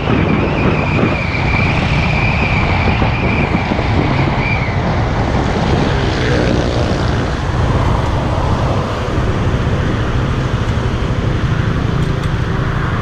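Motorcycle engine running at low speed, with road and wind noise on a helmet-mounted microphone and the surrounding traffic. A steady high whine sounds for the first four seconds or so, then stops.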